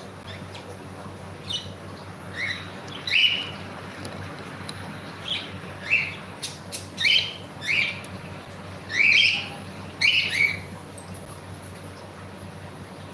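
Pet cockatiel giving a run of short, sharp chirping calls, about a dozen in quick groups, falling quiet for the last couple of seconds, over a steady low hum.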